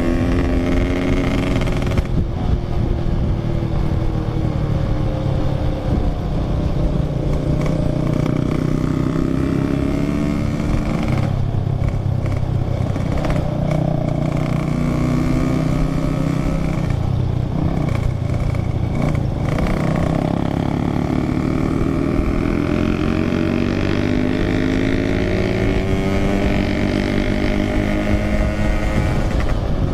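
Yamaha RX-King 135 cc single-cylinder two-stroke motorcycle engine being ridden, its pitch rising and falling again and again as the throttle is opened and closed through a run of bends.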